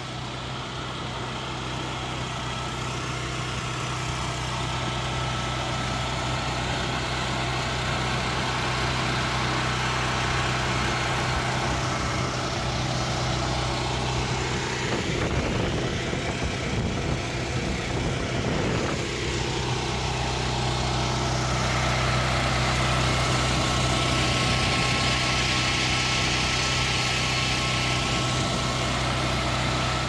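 Walk-behind tractor's small air-cooled petrol engine running steadily while the machine drives along the road, its note shifting for a few seconds about halfway through.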